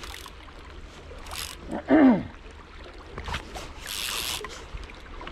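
River water flowing and lapping around a wading angler's legs, with a couple of short hisses. About two seconds in comes one short vocal exclamation falling in pitch.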